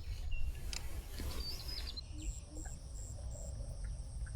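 Outdoor ambience of small birds chirping in short high notes, with a low steady rumble underneath; about halfway through a high insect pulse sets in, repeating about three times a second.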